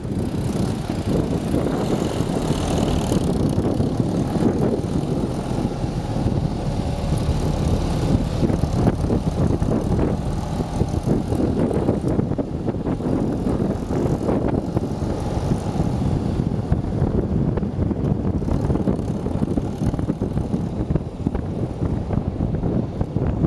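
Steady engine and road noise of a moving car heard from inside its cabin.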